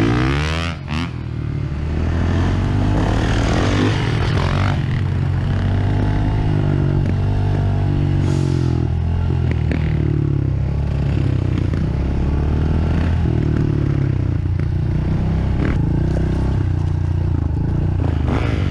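Dirt bike engine running under the rider, revs rising and falling in the first few seconds, with a short dip about a second in, then running steadier, with some clatter from the bike.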